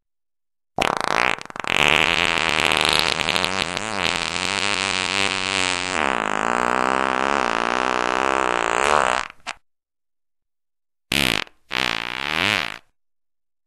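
Farts: one long fart of about nine seconds, its pitch wobbling up and down, then two short farts close together near the end.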